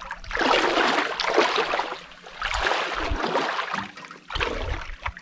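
Lake water splashing and sloshing around a person's legs as he wades in, in three long surges.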